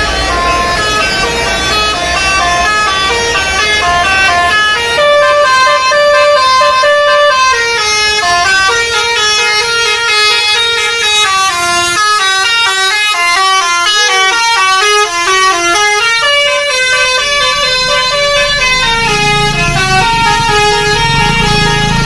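Telolet multi-tone bus horn, a Basuri V3, playing a long tune of several horn notes at once that keep stepping up and down in pitch. Loud and continuous, with quicker changes of note in the middle.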